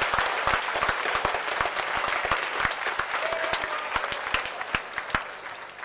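Crowd applauding, with many individual hand claps standing out; it dies away near the end.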